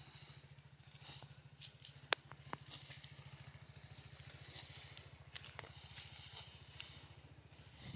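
A small engine running steadily as a faint, even low throb, with scattered faint clicks and rustles over it and one sharper click about two seconds in.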